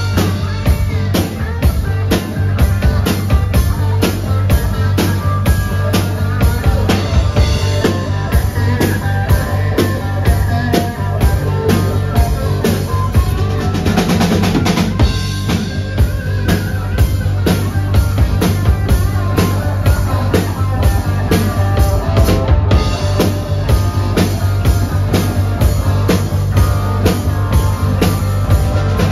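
A live band playing: electric guitar and electric bass over a drum kit, with the bass drum and snare keeping a steady, dense beat under a strong bass line.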